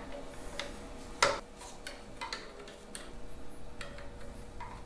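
Scattered small metallic clicks and taps of a wrench and fuel-line fittings being handled on an engine, with one louder click about a second in.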